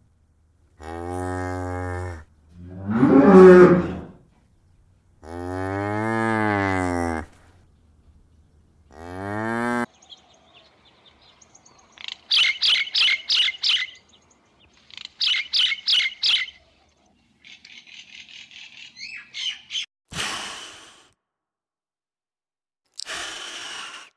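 A string of different animal calls. First come several long, low, drawn-out calls, with a loud rough call among them. About halfway through there are runs of fast high chirps, about five a second, and near the end two short harsh calls.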